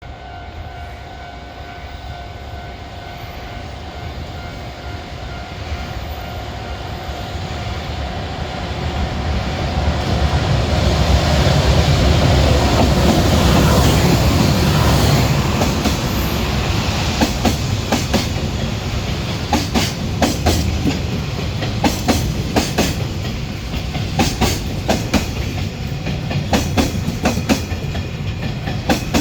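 A container freight train hauled by an EH500 electric locomotive passing, its rumble building to a peak around the middle. From then on the wagons' wheels click over the rail joints in a steady clickety-clack.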